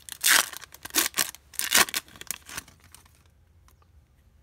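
Foil wrapper of a Topps Chrome baseball card pack tearing and crinkling as it is ripped open by hand, in a series of loud crackles that stop about three seconds in.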